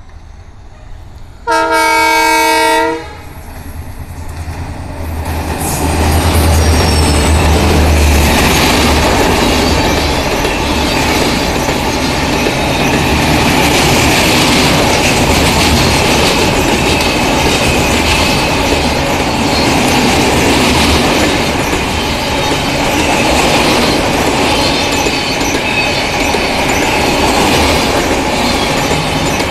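A WDP-4D diesel locomotive sounds its horn once for about a second and a half, then runs past with a loud low engine rumble. The LHB passenger coaches follow over a steel girder bridge with a steady rumble and wheel clatter.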